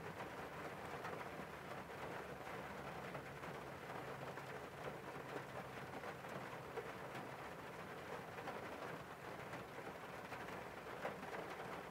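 Steady rain falling on a car's windscreen, heard from inside the car: an even hiss dotted with the ticks of single drops.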